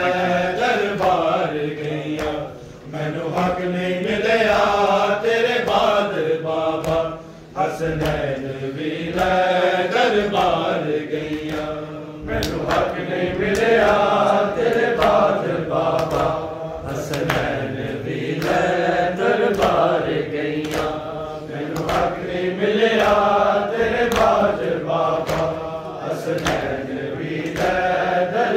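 Men's voices chanting a Punjabi-language noha, a mourning lament, with sharp slaps of hands striking bare chests (matam) keeping a regular beat of about one to two strikes a second.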